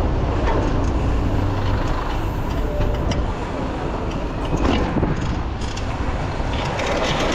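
City road traffic: motor vehicles running close by with a steady rush of road noise, and a low engine hum through the first couple of seconds.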